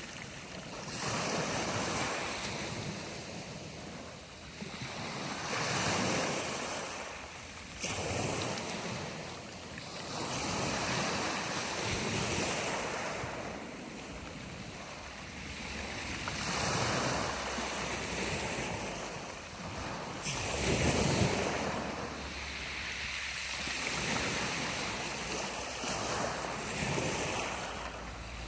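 Black Sea surf: waves breaking on the shore and washing back, one swell every three to four seconds.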